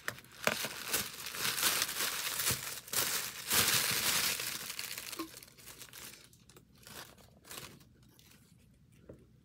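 Paper or plastic wrapping crinkling and tearing as a small yarn package is unwrapped by hand, loudest about three and a half to four and a half seconds in, then dying down to a few light rustles.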